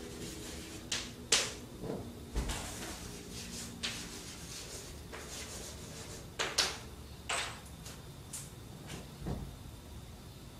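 Chalk writing on a blackboard: sharp taps as the chalk strikes the board, between short scratching strokes, scattered unevenly.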